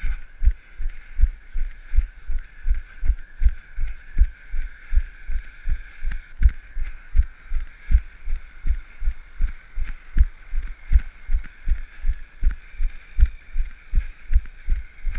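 A runner's footfalls on pavement: a steady low thud about three times a second, heard through the carried camera, with a steady high hiss underneath.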